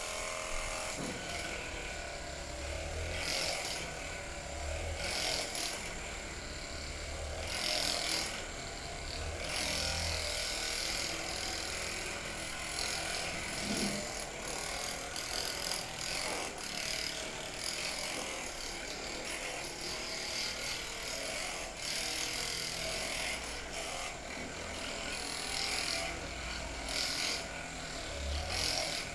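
Handheld electric massager buzzing continuously against the back, its sound swelling and easing at intervals.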